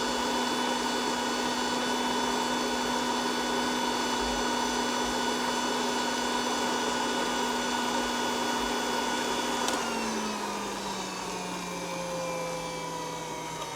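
Hamilton Beach spindle milkshake mixer running on its high setting, a steady motor hum with a whine, blending a milkshake in a metal tin. About ten seconds in, its pitch drops as the motor slows down.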